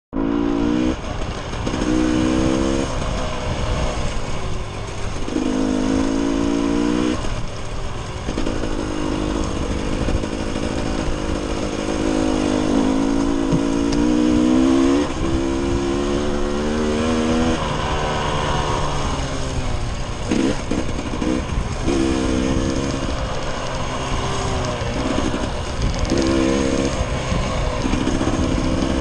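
Dirt bike engine under way, its pitch climbing and dropping over and over as the throttle is opened and closed, with one long climb about halfway through, over a steady low rumble.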